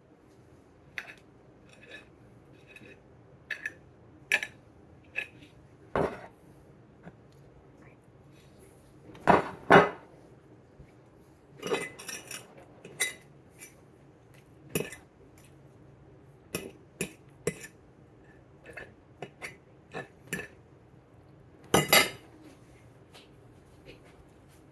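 Kitchen clatter of dishes, pans and cutlery being handled: scattered clinks and knocks, loudest about ten seconds in and again a couple of seconds before the end.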